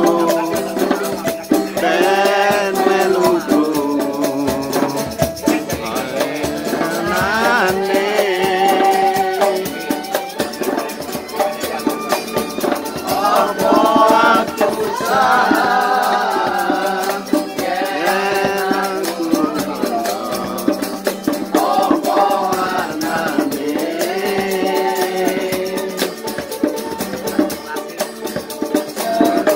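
Street musicians playing a song: a voice singing the melody in phrases of a couple of seconds over a shaker rattling a fast, steady rhythm.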